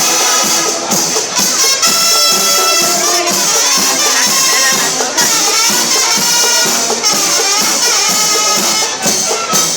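Loud music with a steady beat and held instrument tones.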